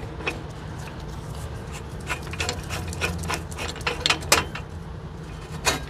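Hub puller's threaded steel pressing shaft being spun down by hand through the puller plate, giving a run of irregular metallic clicks and rattles, with a couple of louder knocks near the end, over a steady low hum.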